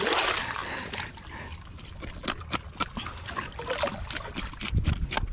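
Water trickling and splashing, with irregular light clicks and taps through the middle and a low rumble near the end.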